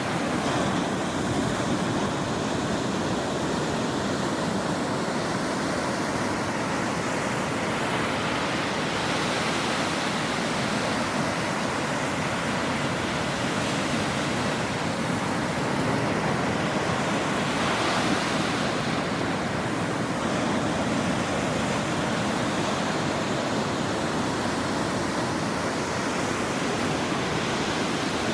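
Ocean waves breaking on a shore: a steady rushing surf that swells every few seconds as each wave breaks and washes in, the biggest surge about two thirds of the way through.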